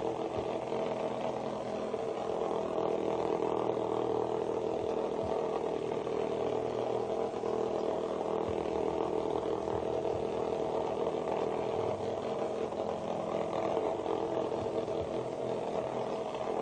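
Vibrating bug toys, cheap knock-offs of Hexbug Nano, buzzing steadily as they skitter around inside a plastic laundry basket.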